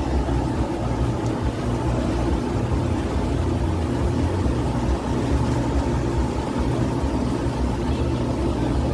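Ferry engine running steadily, a low drone under a continuous rush of noise.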